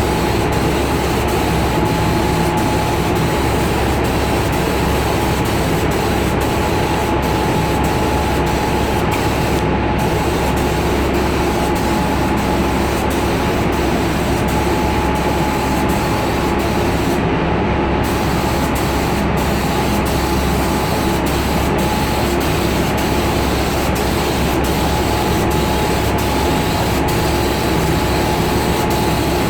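Compressed-air paint spray gun hissing steadily, over the steady drone of the paint booth's machinery with a constant tone in it. The highest part of the hiss drops out briefly twice, about ten and about seventeen seconds in.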